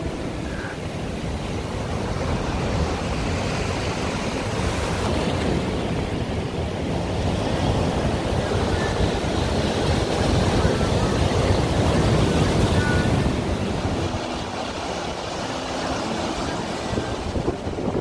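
Sea surf breaking and washing over a rocky, pebbly shore, with wind buffeting the microphone. The surf swells loudest about ten seconds in, then eases.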